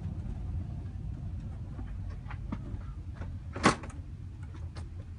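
Steady low rumble of cabin noise inside an Airbus A380 on final approach, with a few faint clicks and one sharp knock a little past halfway.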